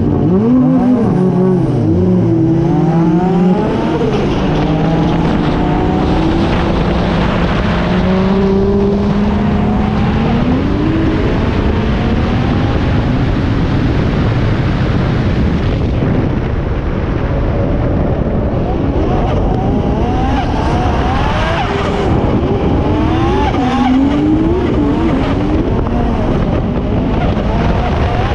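Race car engine pulling away hard from a standstill, its pitch climbing and dropping back with each gear change, then rising and falling with the throttle as the car drives on.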